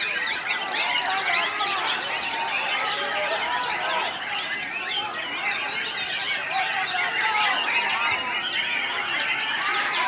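Many caged white-rumped shamas singing at once: a dense, overlapping chorus of whistles, chirps and rising and falling phrases with no break.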